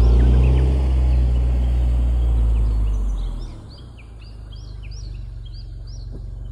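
Toyota 86's flat-four exhaust through a TRUST GReddy Comfort Sport GT-S Ver.1 muffler: a low, steady drone that fades away about three and a half seconds in as the car moves off. A bird sings repeated short chirping notes throughout.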